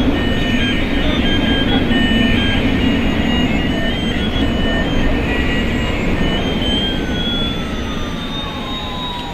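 Battery-operated toy Airbus A380's sound effects playing from its small speaker: steady jet engine noise with a beeping electronic tune over it, and from about two-thirds of the way in one tone gliding up while another glides down.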